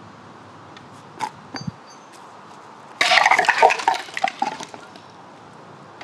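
A sledgehammer smashing a small wooden table: a sudden loud crash about three seconds in, then the broken pieces clattering onto asphalt for about a second and a half. A couple of light knocks come before it.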